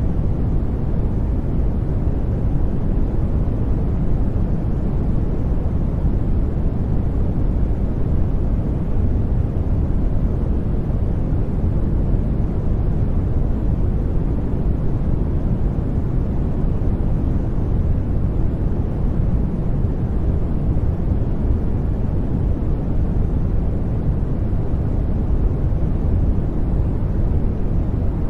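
Steady generated noise from a noise generator, deep and weighted to the low end with little treble, unchanging, with no other sound.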